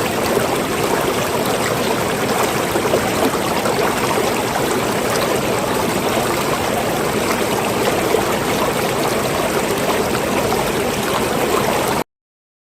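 Water running steadily with a splashing, burbling rush, then cutting off suddenly about a second before the end.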